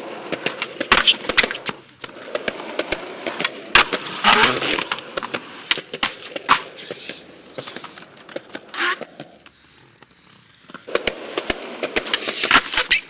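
Skateboard wheels rolling over rough pavement, broken by sharp board pops and landing clacks and a scrape of the trucks along a concrete ledge. The rolling fades for a moment about two-thirds of the way in, then starts again near the end.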